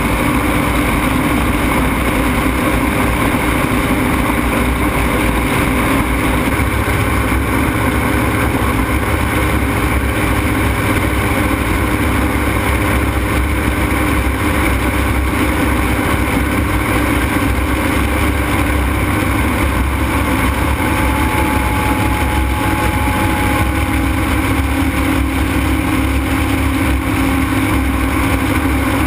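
Ultralight aircraft's engine running steadily at flight power, a loud continuous drone mixed with the rush of air over the open airframe.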